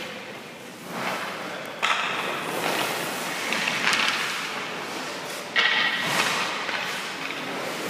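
Ice skate blades scraping the ice as a goalie pushes and stops, with two sharp scrapes about two seconds in and again near the end.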